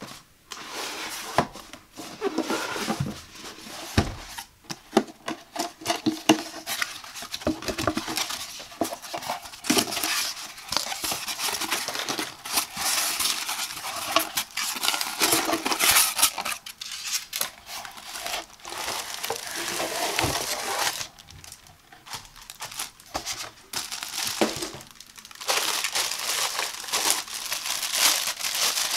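Close-miked packaging sounds: a cardboard product box handled, tapped and opened, its flaps and a styrofoam insert scraping and knocking, with many light clicks. Near the end a clear plastic bag crinkles as it is pulled off a black metal wire coffee pod carousel.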